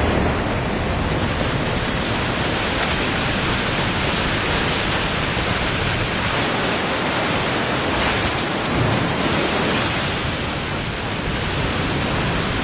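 Alexandra Falls on the Hay River pouring over its 35-metre drop in spring breakup, the water thick with mud and broken ice: a loud, steady rush of falling water that swells briefly about eight seconds in.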